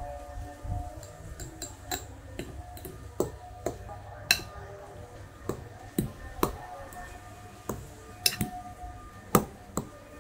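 Metal fork clinking and scraping against a glass mixing bowl while mashing and stirring boiled potato. The clinks are irregular, about one or two a second, with a few louder knocks.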